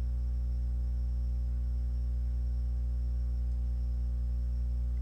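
Steady low electrical hum, mains hum, unchanging throughout, with a faint thin high whine above it and no speech.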